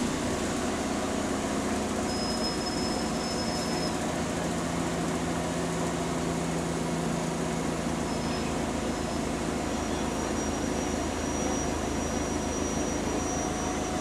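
Bus heard from inside the saloon while under way: steady engine and road noise. A thin high whistle comes in about two seconds in and again from about ten seconds in, plausibly the turbo leak named for this bus.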